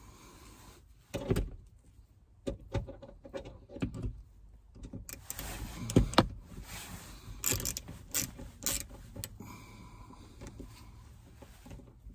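Scattered clicks, taps and knocks from handling a car sun visor and starting its mounting screw against the roof, the loudest knock about six seconds in.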